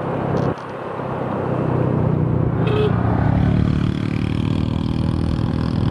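Motorcycle engine pulling under load as the bike accelerates. Its sound drops briefly about half a second in, then builds over the next couple of seconds and runs on steadily.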